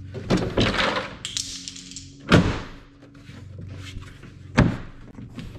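Tailgate of a Yamaha Wolverine X4 side-by-side's cargo bed being handled and swung shut, with two sharp thunks about two seconds apart, the first the loudest, as it closes and latches against the Packout box sitting in the bed.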